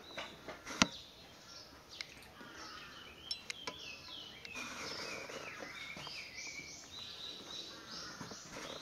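Short chirping bird calls over a steady background hiss, with a single sharp tap a little under a second in and a few fainter clicks later.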